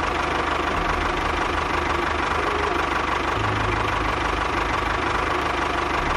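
Tractor engine sound running steadily with a low, even chugging beat.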